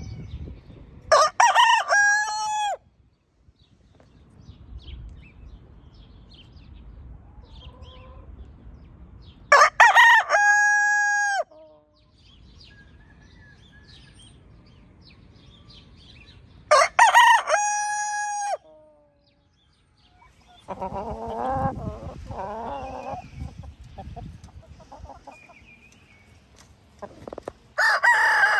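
A Faverolles bantam rooster crows three times, about seven seconds apart, each crow ending on a long held note. Later come a run of chicken calls and the start of another crow from an Exchequer Leghorn rooster near the end.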